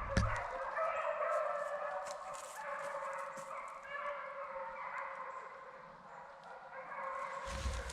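A pack of deer hounds baying in overlapping chorus while running a deer, dipping in level about six seconds in.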